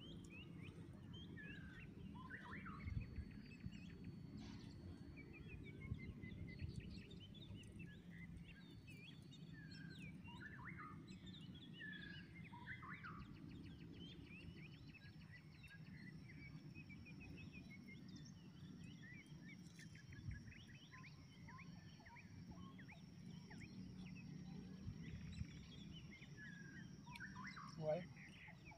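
Faint bird chirps and calls, many short rising and falling notes scattered throughout, over a steady low background hum. A thin, high, steady tone joins about halfway through.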